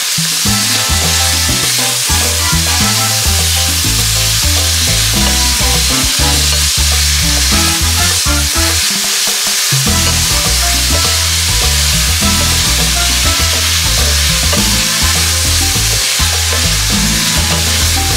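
Sliced mushrooms and beef strips sizzling steadily in a hot stainless steel frying pan while being stirred and turned with a wooden spatula. Background music with low held notes runs underneath.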